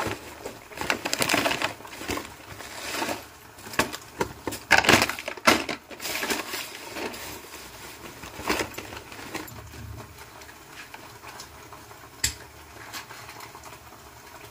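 A cooking utensil scraping and knocking against a pan of tomato masala in irregular strokes, with a single sharp click a little before the end.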